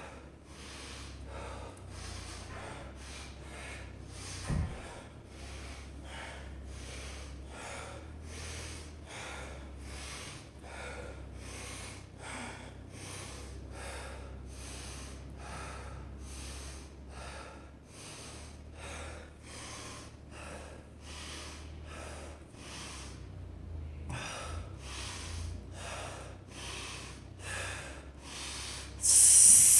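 A person breathing hard and fast in a steady rhythm of sharp breaths, about one and a half a second, winded from deadlifts and chin-ups. A short loud burst of noise near the end.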